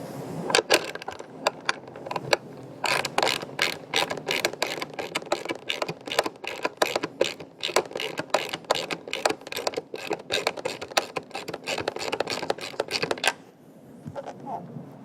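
Hand ratchet wrench clicking in quick uneven runs as bolts are tightened, stopping about two seconds before the end.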